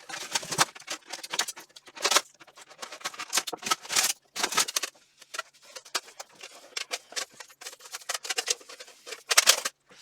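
Irregular clicks, rustles and light knocks of steel armour plates, buckles and straps being handled while leg armour is put on.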